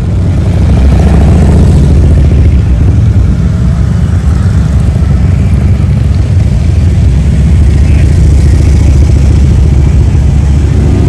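Motorcycle engines running loudly, a deep, steady low exhaust note with a fast pulse.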